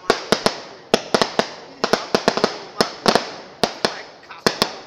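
A string of firecrackers going off: a rapid, irregular run of sharp bangs, about five a second, each with a short echoing tail, easing briefly near the end.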